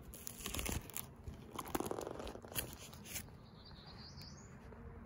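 Clear plastic photo-album sleeves crinkling and rustling as the page is handled and turned, a run of rustles over the first three seconds, loudest about two seconds in.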